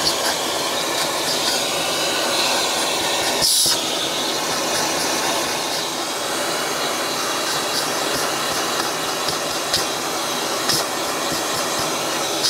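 Vacuum cleaner running steadily with its hose open, drawing in dust as a soft-bristle detailing brush is swept over a car's centre-console buttons and trim. A few light ticks from the brush and hose, one a little louder about three and a half seconds in.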